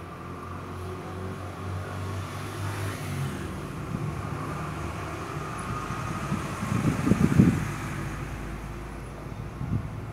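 A motor vehicle's engine running as it passes: it grows louder to a peak about seven seconds in, then fades away.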